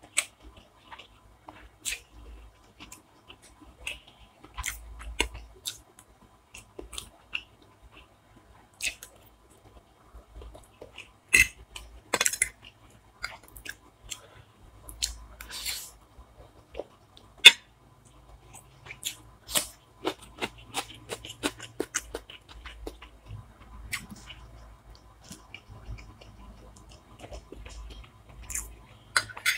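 A person chewing and biting food close to the microphone: irregular wet mouth clicks and crunches, with a few louder, sharper crunches near the middle.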